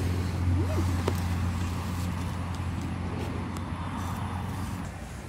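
A low, steady engine hum, fading toward the end.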